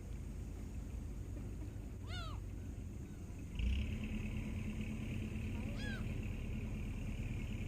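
Two short animal cries, each rising and then falling in pitch, about two seconds in and again near six seconds, over a steady low rumble. About three and a half seconds in, a steady hum with a thin high whine starts and carries on.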